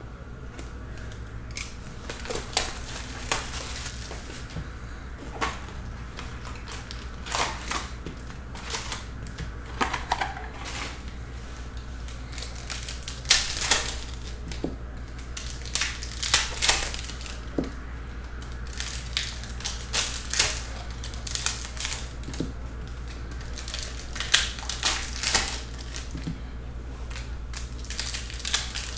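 Upper Deck Artifacts hockey card box being opened and its foil card packs torn open by hand: irregular crinkling and tearing of wrappers and cardboard, over a steady low hum.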